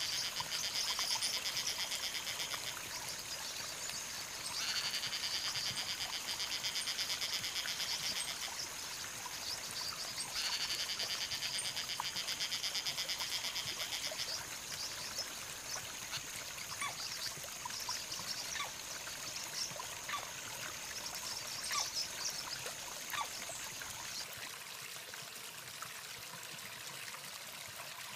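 Nature ambience: a rapid, buzzy, pulsed animal trill sounds three times, each bout about three to four seconds long. Beneath it run a thin steady high whine, which stops a few seconds before the end, and a faint trickle of water.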